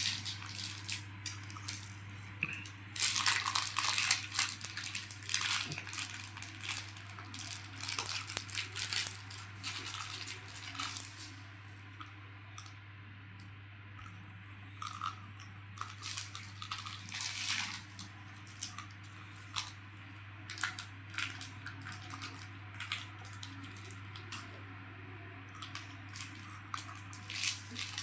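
Irregular crinkling, crackling and small clicks and taps of food and things being handled, busiest in the first half, thinner in the middle and picking up again near the end, over a steady low hum.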